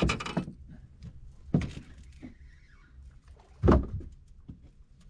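Knocks and thumps on a small fishing boat: three short ones about two seconds apart, the last the loudest.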